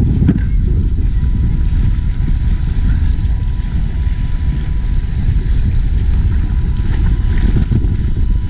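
Wind buffeting an action camera's microphone, a heavy, uneven low rumble, with a faint steady high tone underneath.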